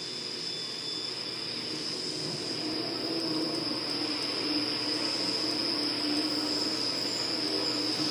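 Electronic noise drone from the stage performance's soundtrack: a steady hiss with a thin high whine and a wavering low hum, slowly swelling in loudness.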